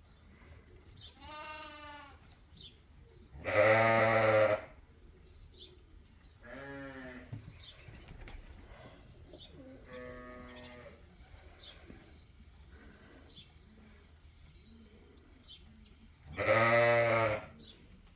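Sheep bleating: two loud, deep bleats, one about four seconds in and one near the end, with three fainter, higher-pitched bleats between them. The flock is calling because it thinks it is feeding time.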